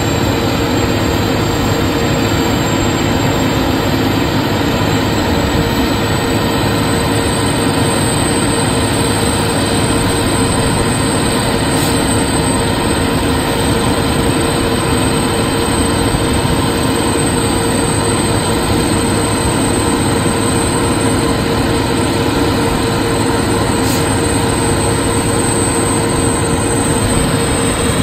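Terex T560 truck crane running steadily while its hook is lowered on the hoist cable: an even engine drone with a steady hum running through it.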